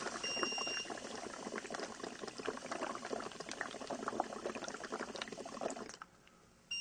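Breath bubbling through the warm alcohol-and-water solution in a breathalyzer calibrator bottle: a steady gurgle lasting about six seconds, then stopping. A short high electronic beep sounds near the start.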